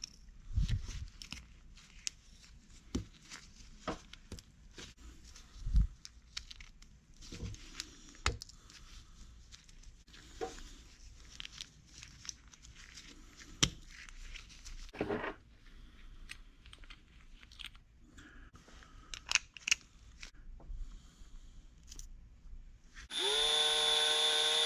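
Scattered small clicks, taps and rustles of plastic and metal RC car parts and tools being handled on a workbench. Near the end, a cordless power screwdriver spins up and runs steadily for about a second and a half; this is the loudest sound.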